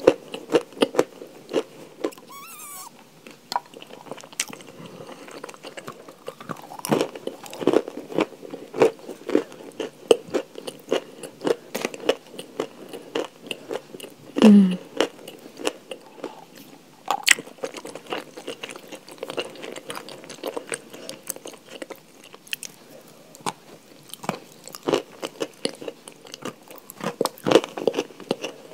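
Chewing and crunching chalk close to the microphone: a dense run of small, crisp crunches and chews. About halfway through there is a short falling hum.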